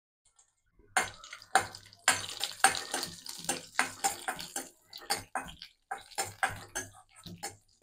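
Cashew pieces frying in ghee in a stainless steel kadai, sizzling as a spoon stirs them, with many quick scrapes and clicks of the spoon on the pan. It starts about a second in.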